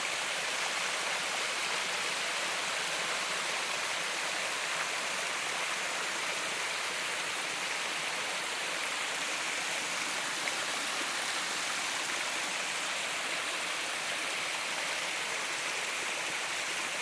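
Flowing water rushing and splashing, a steady hiss without a break.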